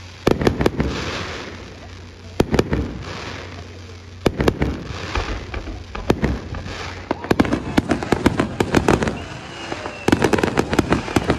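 Aerial fireworks shells bursting, each sharp bang trailing off in crackle and echo, with dense runs of rapid bangs in the last few seconds. A high whistling tone slowly falls in pitch from about ten seconds in.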